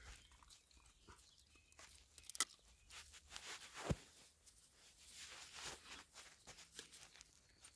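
Faint rustling and clicks from a puppy moving about at play, with one sharp click about two and a half seconds in and a dull thump about four seconds in.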